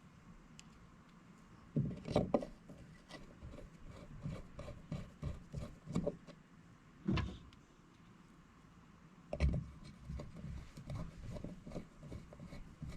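Parts being handled and fitted by hand: a quiet start, then irregular knocks, clunks and rubbing as pieces are set in place.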